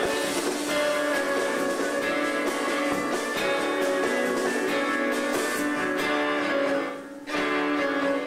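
Live chamber-rock band playing, with violin and viola bowing held notes over a plucked guitar part. The music dips briefly about seven seconds in and breaks off again at the end.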